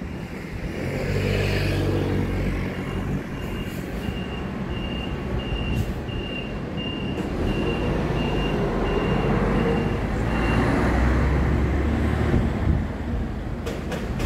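A motor vehicle engine running with a steady low rumble, and a high beep repeating about twice a second for about seven seconds. Two or three sharp clicks come near the end.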